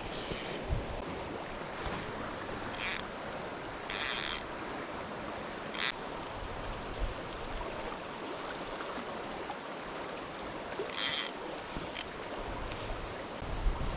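River current rushing steadily, with a few brief high hissing sounds over it.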